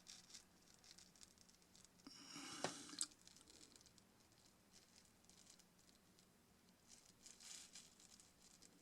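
Near silence with faint handling noises: a short scraping rustle about two seconds in, ending in two small clicks, and a fainter rustle near the end.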